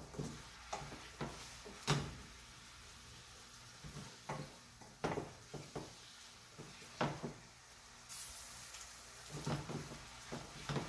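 Wooden spoon stirring a saucepan of simmering sauce, knocking against the pan at irregular intervals. A hiss from the hot pan comes in about eight seconds in.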